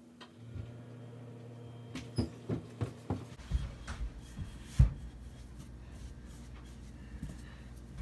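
Handling knocks as a 4L80E rear planetary gear set, a heavy steel part, is handled and set down on shop towels on a counter. There are several sharp knocks over a couple of seconds, the loudest about five seconds in, over a low steady hum.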